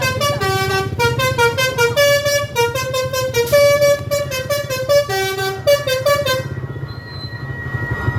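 Bus telolet horn playing a quick tune of short notes at several pitches, the phrase repeating, then stopping about six and a half seconds in. The bus engine runs steadily underneath.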